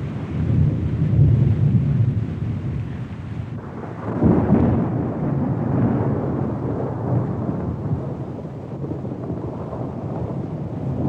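Rolling thunder: a long low rumble that swells about a second in, then a louder peal about four seconds in that slowly dies away.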